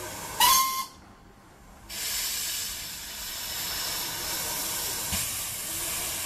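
Steam locomotive sounds played with a model USA dock tank engine: a short, loud steam whistle, then after about a second's pause a steady hiss of escaping steam.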